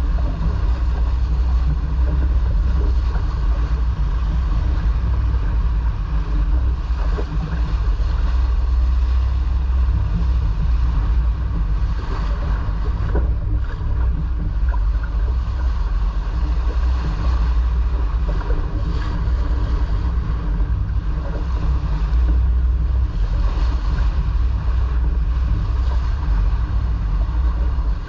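Steady wind and water noise aboard a sailboat under way: a low rumble of wind on the microphone over water rushing along the hull.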